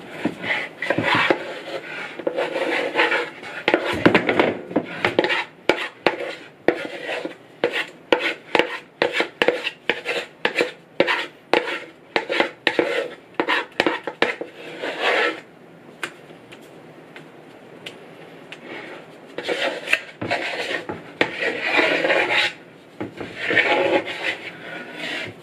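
Spatula scraping a creamy whipped-topping mixture from the sides of a wooden bowl in quick repeated strokes, about two a second. After a pause of a few seconds come several longer scrapes.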